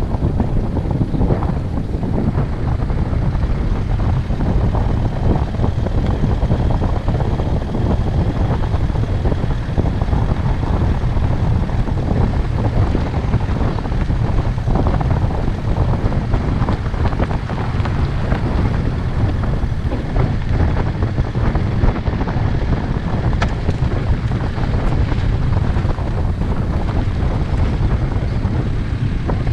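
A moving vehicle's engine running steadily, with heavy wind buffeting the microphone.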